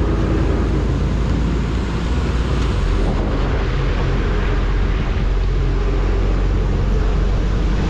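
Strong typhoon wind buffeting the camera microphone: a steady, loud rumbling rush with no let-up.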